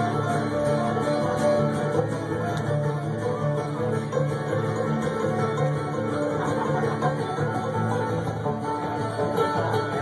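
A bluegrass trio playing live: banjo picking over acoustic guitar and upright bass in an instrumental passage with no singing.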